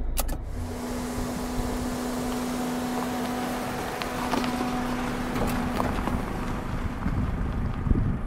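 Car tyres rolling slowly over loose gravel and rocks, with scattered sharp ticks of stones under the tyres, over a steady engine hum and a constant rushing noise.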